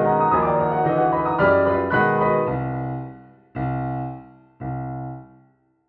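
Piano playing busy atonal arpeggios that die away, then two loud chords about a second apart, each fading out. The cue ends on a pure C major triad.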